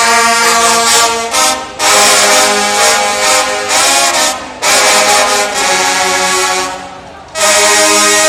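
A trombone section playing loud, long held chords, about four blasts with short breaks between them, the last one starting near the end.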